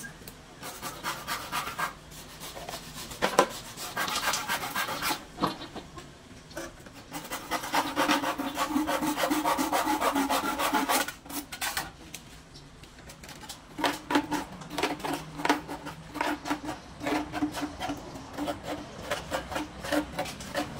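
Rasping back-and-forth strokes of a hand tool working bamboo, in quick rhythmic runs separated by short pauses.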